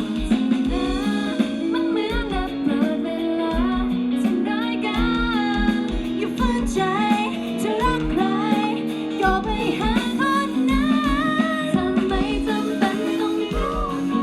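Live pop song through a concert sound system: a singer's wavering vocal melody over guitar, sustained chords, bass and a regular low kick-drum beat.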